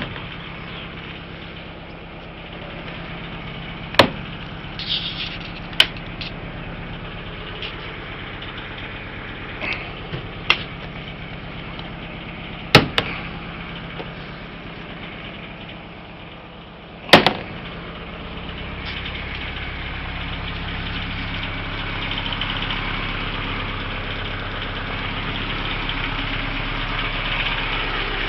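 Narrowboat's engine idling steadily, with several sharp knocks over the first two-thirds. About 18 seconds in, the engine sound grows louder and stays up.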